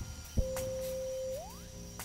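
Electronic bird-repeller sound: a loud pop, then a steady beeping tone held for about a second that sweeps quickly upward, with sharp clicks around it.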